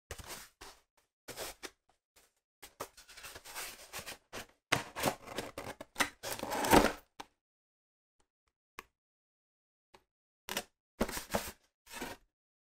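Cardboard packaging being handled: the box is opened at one end and its inner tray slid out, in a run of scraping and rubbing bursts that is loudest about six to seven seconds in. A pause follows, broken by one click, then a few more short handling sounds near the end.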